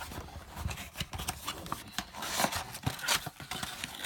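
A trading-card blaster box being opened by hand: irregular rubbing, scraping and crinkling of cardboard and plastic wrap, with scattered sharp clicks.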